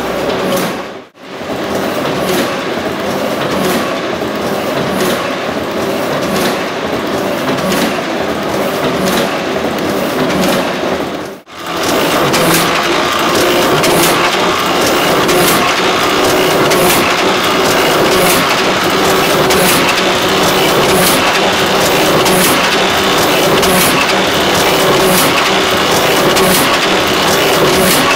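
Heidelberg Original cylinder die-cutting press running and cutting paper sheets: a steady, loud, rhythmic mechanical clatter of the feed, cylinder and grippers cycling. It drops out for an instant about a second in and again about eleven seconds in.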